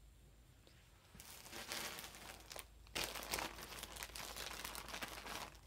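Crinkling and rustling as things are handled, in two stretches starting about a second in, with a short break near the three-second mark.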